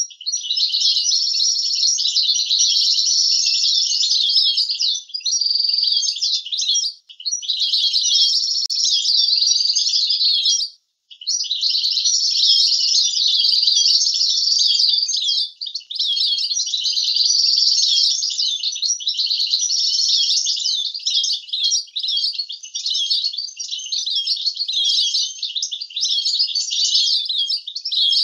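European goldfinch singing a long, rapid, high-pitched twittering song, broken only by two short pauses about seven and eleven seconds in. It is a clean song with no background noise, the kind played to young goldfinches to teach them to sing.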